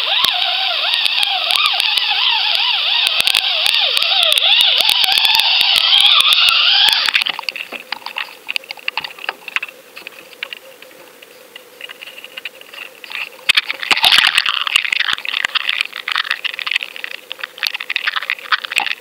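Sound heard underwater through a submerged action camera as it is reeled up. A loud warbling whine with wavering, gliding pitch lasts about the first seven seconds and then drops away, leaving scattered clicks and knocks. A burst of rushing water noise comes about two-thirds of the way through, as the camera nears and leaves the surface.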